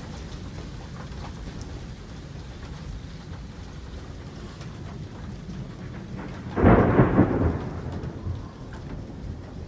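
Steady rain falling, then about two-thirds of the way through a sudden loud thunderclap that rumbles on for a couple of seconds before fading.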